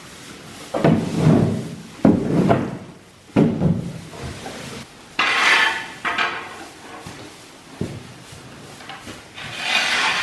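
A series of scraping and rubbing strokes, three in the first four seconds, then brighter rustling hisses about five seconds in and again near the end.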